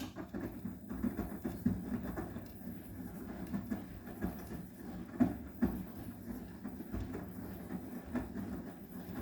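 Arçelik 9120M washing machine drum starting to turn abruptly after a pause, with wet laundry tumbling and sloshing inside in an uneven rumble of soft thuds.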